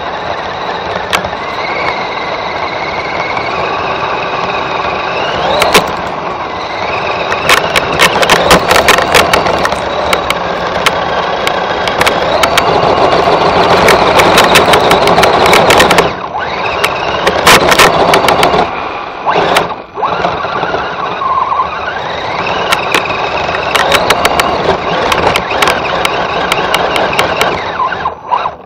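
Electric motor and gear drivetrain of an Axial SCX10 radio-controlled crawler whining, the pitch rising and falling with throttle, heard close up from a camera mounted on the truck. Under it is the noise of the tyres churning crusty snow, with dense runs of rapid crackling clicks through the middle stretch.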